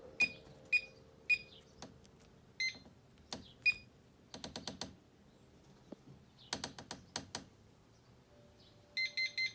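Kwikset 264 electronic deadbolt keypad beeping as its buttons are pressed: short single beeps with button clicks, and a quick run of about five beeps near the end. The lock is failing to program, so no bolt movement follows.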